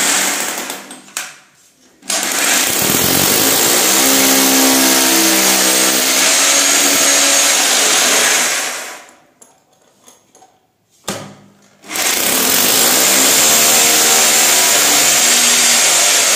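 Corded hammer drill boring into ceramic floor tile in two long runs, about seven and five seconds, with a short pause between. Each run starts with the motor's pitch climbing and then holding steady.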